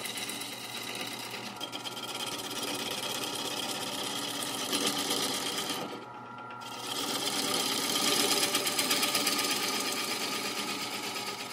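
A bowl gouge making light blending cuts on the outside of a spinning green-wood bowl blank on a lathe: a steady, rapid fine chatter over the lathe's steady hum. About six seconds in the tool lifts off the wood for a moment, leaving the hum, then the cut resumes.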